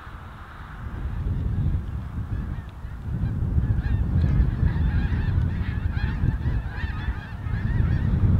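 A large flock of snow geese calling: many overlapping high honks that grow busier in the second half. Under them, a loud low rumble of wind buffeting the microphone starts about a second in.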